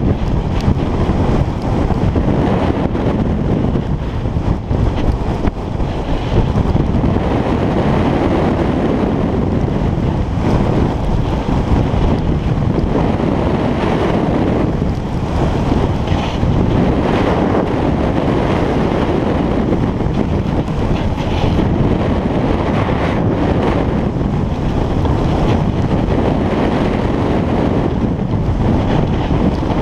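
Loud, steady wind buffeting the microphone of a snowboarder's point-of-view camera during a fast downhill run, mixed with the hiss of the snowboard sliding and carving over snow.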